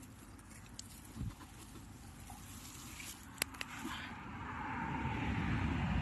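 Dry grass and leaves rustling as a hand pushes through them, with a few small sharp clicks and snaps; the rustling grows louder over the last couple of seconds.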